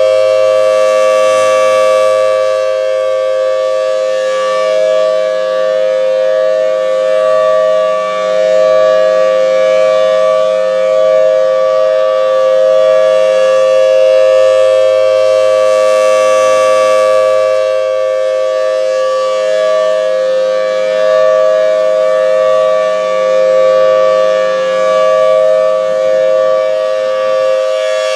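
Federal Signal Thunderbolt 1003 outdoor warning siren sounding a loud, steady two-note wail at full pitch during a test. Its level swells and fades every few seconds as the rotating head sweeps past.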